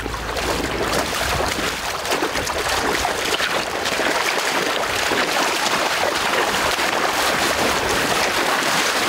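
Steady rush of wind and water, with splashing from people wading through river shallows.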